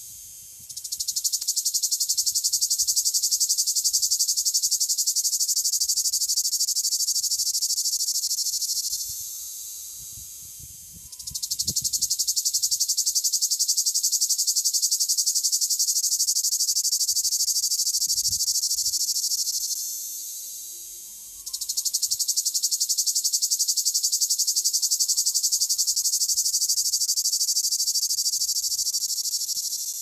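A male cicada singing: three long phrases of high, rapidly pulsing buzzing, each about eight seconds, that start suddenly and fade out, with a quieter buzz in the short gaps between them.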